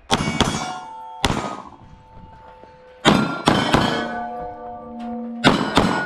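About six 9mm Glock pistol shots in quick pairs and singles, each followed by steel target plates ringing on the hit, the ringing tones hanging on between shots.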